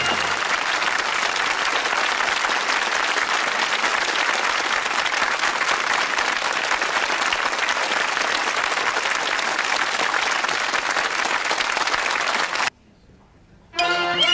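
Studio audience applauding steadily. The applause cuts off abruptly near the end, and after about a second of quiet, music begins.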